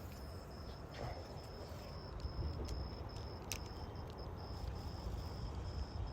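Insects chirping steadily in a high, evenly pulsed trill of about three pulses a second, over a low rumble, with a couple of sharp clicks.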